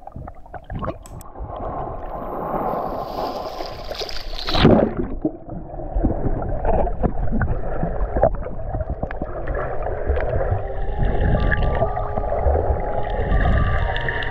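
Muffled gurgling and sloshing of water around a GoPro camera carried by a swimming snorkeler, with one loud falling whoosh about four and a half seconds in.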